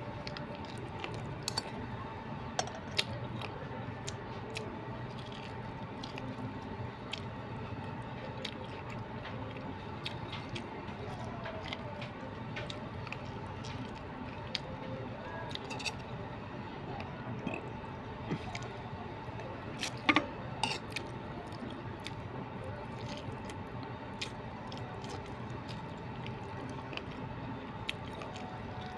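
Chewing and biting of boiled corn kernels off the cob, wet mouth sounds with scattered short sharp clicks, over a steady faint hum.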